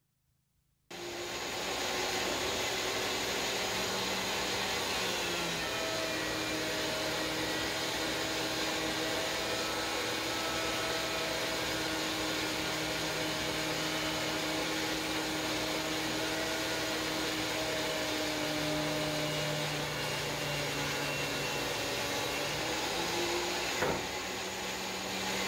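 DeWalt DW735 thickness planer with a Byrd Shelix helical carbide cutterhead running and planing a long board, coming on about a second in. Its steady whine drops in pitch as the board loads the cutterhead, then rises again near the end as the board feeds out, with a single knock just before.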